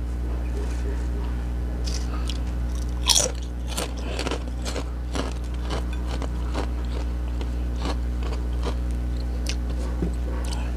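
Crackling and crunching food sounds from a plate of burgers and potato chips, a string of short, sharp crackles with the loudest about three seconds in, over a steady low hum.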